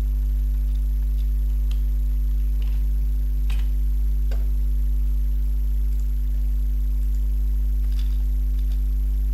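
Steady low electrical mains hum on the recording, with a few faint, scattered keyboard keystroke clicks as code is typed.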